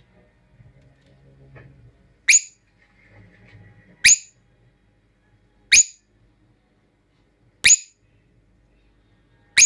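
Masked lovebird (yellow-collared lovebird) giving five short, shrill, piercing calls, one about every two seconds, very close to the microphone.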